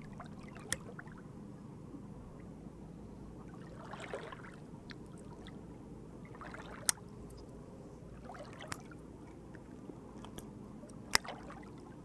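Tools of a Victorinox Forester Wood Swiss Army knife being worked open and shut by hand: several sharp metal clicks as the tools snap into place, the loudest about seven and eleven seconds in, with soft scraping and handling between.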